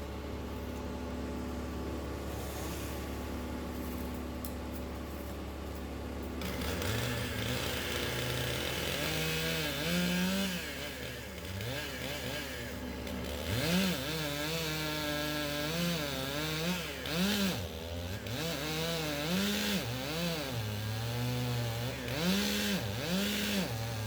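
A chainsaw cutting through the base of a large tree trunk, its pitch rising and falling again and again as it is throttled through the cut. For the first six seconds or so only a steady engine hum is heard before the saw comes in.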